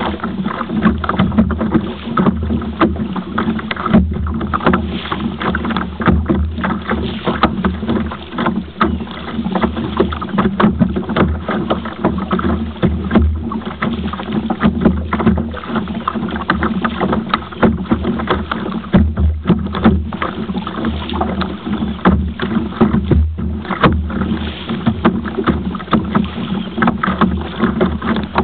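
Water splashing and sloshing against the hull of a kayak under way: a continuous, uneven noise with a heavy low rumble that swells and dips irregularly.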